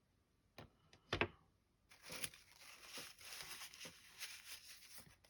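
Two sharp knocks, then about three seconds of crackly rustling and scraping with many small clicks, as small parts and tools are handled on a workbench.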